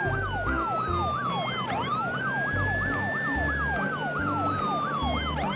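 Electronic siren sound: a fast yelp repeating about three to four times a second over a slower wail that slides down and swoops back up twice, with a low thumping beat underneath.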